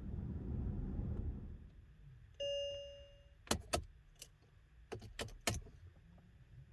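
Inside a 2008 Mercedes-Benz S550 that will not crank: a single electronic warning beep from the car, about a second long, followed by about seven sharp clicks over the next few seconds as controls or keys are handled.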